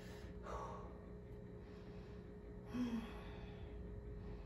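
A woman breathing audibly while holding a yoga pose: a soft breath near the start and a louder exhale with a brief bit of voice about three seconds in, over a low steady hum of room tone.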